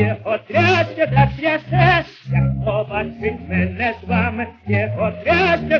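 A 1928 electrically recorded Columbia 78 rpm record of a Ukrainian folk song playing. A tenor sings with a wide vibrato over an orchestra accompaniment.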